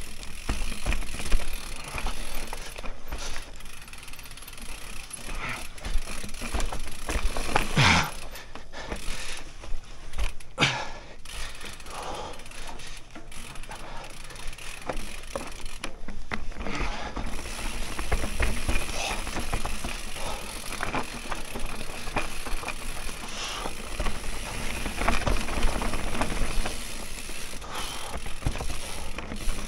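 Mountain bike (Mondraker Raze) riding fast down a dirt forest trail: steady noise of tyres on dirt, roots and stones, with the chain and parts rattling and sharp knocks over bumps, the clearest about a second in and around 6, 8 and 11 seconds.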